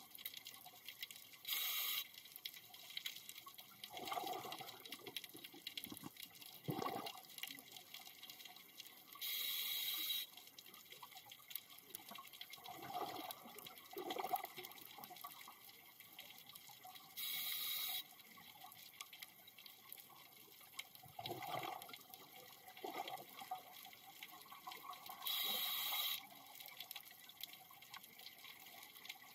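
Scuba diver breathing through a regulator underwater: four short hisses about eight seconds apart, with bubbling bursts between them.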